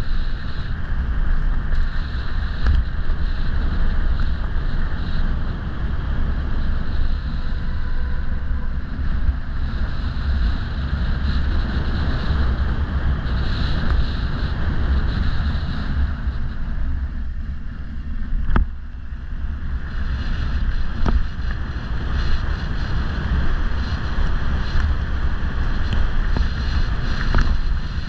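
Wind buffeting the microphone of a fast-descending mountain bike as a steady low rumble, over the hiss of tyres rolling on gravel and then on dry leaves. A few sharp knocks from bumps in the track, the clearest about two-thirds of the way through.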